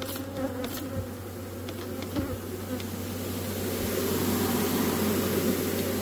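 A large honeybee colony buzzing as a mass in an opened wall cavity, the buzz swelling louder about halfway through.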